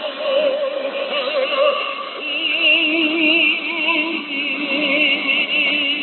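Music played over a shortwave radio broadcast: long held melody notes with wide vibrato, operatic in style, heard through a narrow receiver passband that cuts everything above about 4 kHz and below about 200 Hz, giving a thin, boxy sound.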